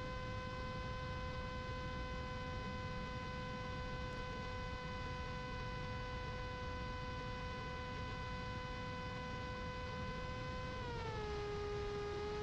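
Electric motor and propeller of a Mini Drak flying wing, heard from the camera on board: a steady whine over low wind rush. About eleven seconds in the pitch slides down to a slightly lower steady note as the motor slows.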